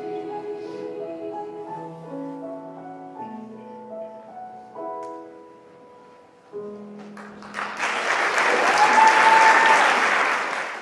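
Closing notes of a mixed choir piece with piano, fading softly. About seven seconds in, audience applause breaks out and becomes the loudest sound, with a cheer rising out of it.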